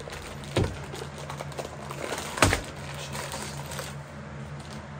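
Wooden speed-stacking cups being handled, clicking and tapping against each other, with two louder knocks, one about half a second in and one near the middle.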